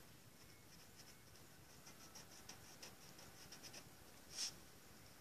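Faint scratching of a pencil drawing short strokes on paper, coming in quick little runs, with one louder scrape near the end.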